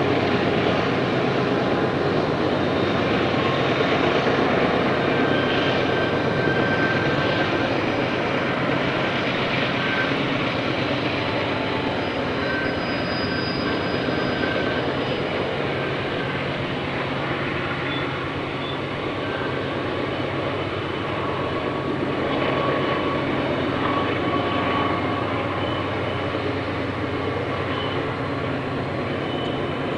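Five diesel-electric freight locomotives (two GE Evolution-series and three GE Dash 9s) running steadily under heavy load as they haul a 6,000-ton double-stack train up the grade. The sound is a constant low engine drone, with faint high squeals now and then.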